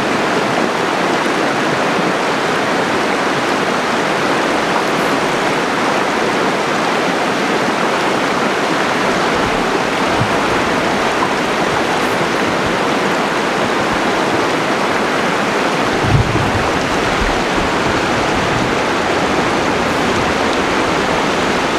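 Shallow, fast river water rushing steadily over rocks, with a brief low rumble about sixteen seconds in.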